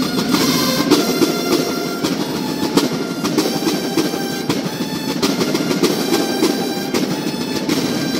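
Banda de guerra, a Mexican drum and bugle corps, playing: bugles holding long sustained notes that change every second or so over continuous snare drum rolls and beats.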